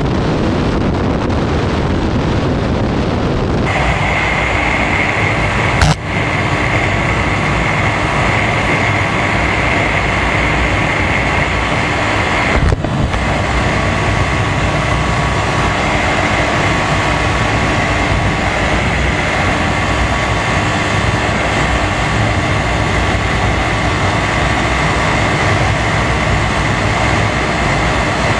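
Wind rushing over a bike-mounted camera's microphone and single-cylinder motorcycle engines held at steady highway speed. First comes a Bajaj Pulsar NS200; about four seconds in the sound switches to a Yamaha Fazer 25, with a steady high whine over the engine. There are two sharp knocks, about six seconds in and again about seven seconds later.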